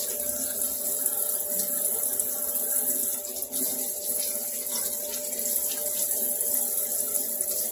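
Cold kitchen tap running steadily into a sink, water splashing over a turkey neck being rinsed under the stream.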